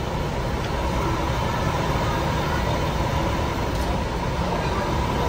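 Diesel coach buses idling close by: a steady low engine rumble with a steady high-pitched hum on top.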